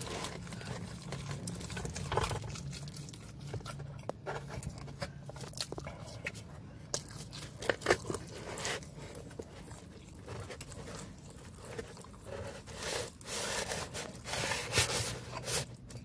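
Someone chewing and eating pizza, with scattered short mouth noises and the cardboard pizza box being handled, over a low steady hum.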